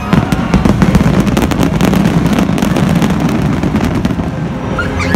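Aerial fireworks bursting in quick succession, a dense run of bangs and crackles that is heaviest in the first second or so.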